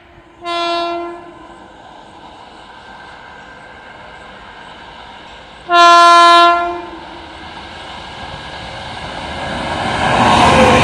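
Indian Railways locomotive horn sounding twice: a short blast about half a second in and a longer, louder blast about six seconds in. Then the rumble of an approaching train grows steadily louder near the end.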